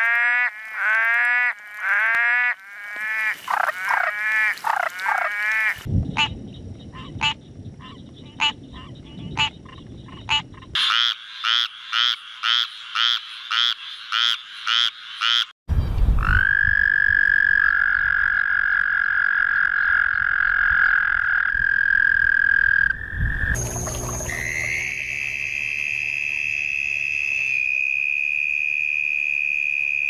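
A run of different frogs and toads calling, one after another. First a green tree frog gives quick repeated calls that bend in pitch. Then come evenly spaced clicking and pulsed calls, and from about halfway a toad in shallow water gives one long steady high trill, followed by another steady trill at a higher pitch.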